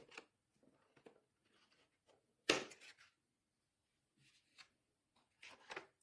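Phone box packaging handled while accessories are taken out: short rustles and scrapes, the loudest about two and a half seconds in and a few more near the end.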